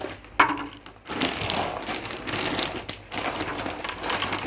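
Cats crunching dry kibble: a dense, irregular crackle that starts about a second in. A single short, sharp knock comes just before it and is the loudest moment.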